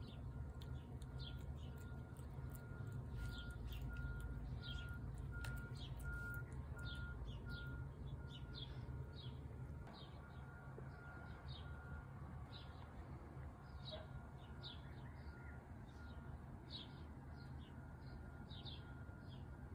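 Small birds chirping outdoors: many short, high, falling chirps a few times a second. Under them are a steady low rumble and a faint beep repeating at an even pace.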